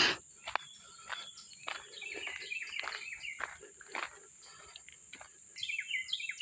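Steady high-pitched drone of insects in the woods, with footsteps crunching through leaf litter and brush. Birds chirp in short bursts about two seconds in and again near the end.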